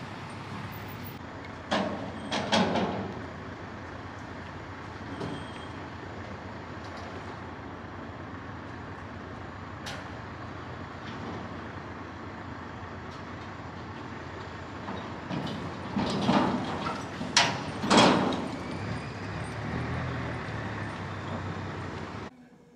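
Metal parts of a fairground ride being assembled, clanking and banging in loud short clatters about two seconds in and again several times around sixteen to eighteen seconds in, over a steady low engine hum.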